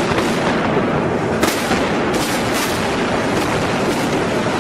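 Controlled demolition of a high-rise building: several sharp cracks of demolition charges firing over a loud, steady rumble as the structure comes down.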